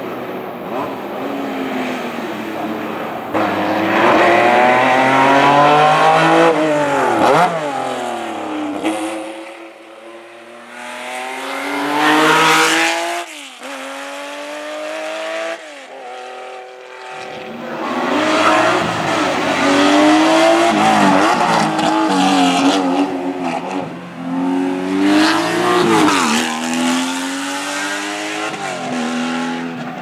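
Racing cars driven hard up a hill-climb road, passing one after another. Each engine revs up in pitch and drops back through a series of upshifts, growing loud as the car goes by, then fading.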